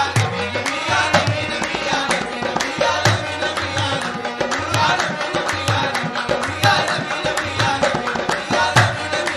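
Qawwali instrumental interlude: tabla playing a fast, steady rhythm under sustained harmonium chords.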